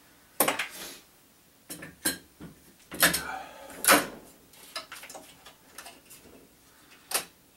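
Metal clicks, clunks and knocks of an AR-15 upper receiver being handled and set onto a receiver fixture in a bench vise. There are a handful of sharp knocks, the loudest about three and four seconds in.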